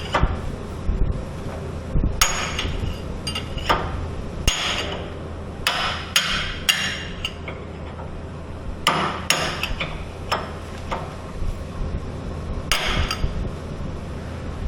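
Hammer blows on steel, about fifteen strikes in irregular groups with pauses between, each with a short metallic ring, as an axle pin or bushing is driven on a Skyjack SJIII3219 scissor lift during bushing replacement.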